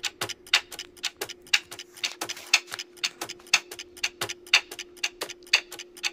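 Clock-ticking sound effect of a quiz countdown timer: quick, even ticks, several a second, with a louder tick about once a second, over a faint steady hum.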